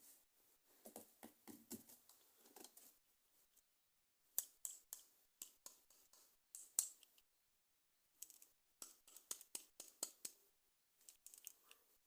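Faint handling of plastic toy packaging: clusters of sharp clicks, snips and rustles come in bursts of a few seconds with short pauses between them.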